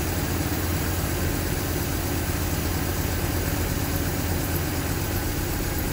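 1978 MGB's 1.8-litre B-series four-cylinder engine idling steadily while the mixture on one of its twin SU carburettors is turned richer. The richer mixture is making it start to bog down.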